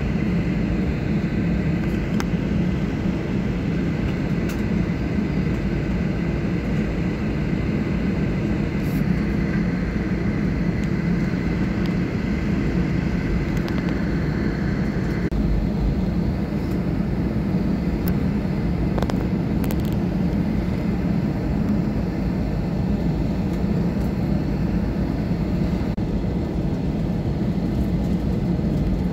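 Airliner cabin noise heard inside the passenger cabin: a steady jet-engine rumble with airflow as the plane rolls along the ground. A faint high whine stops about halfway through.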